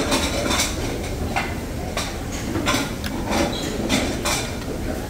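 Metal serving tongs clinking against stainless steel buffet pans as food is picked up, a series of about seven sharp clinks over a steady low background noise.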